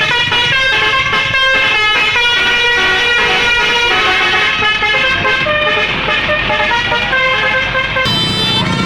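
Indonesian bus 'telolet' musical air horn (Basuri type) playing a quick tune of stepping notes. About eight seconds in, the tune gives way to one held chord.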